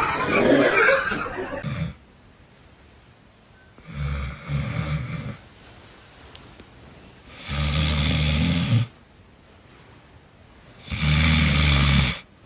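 A person snoring loudly: three long rasping snores, each a low buzzing rattle, evenly spaced about three and a half seconds apart. Another loud, rough sound fills the first second and a half.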